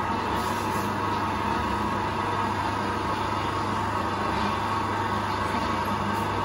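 20-litre planetary mixer running with an empty bowl in first gear, its lowest speed: a steady electric-motor and gearbox hum with a higher whine over it.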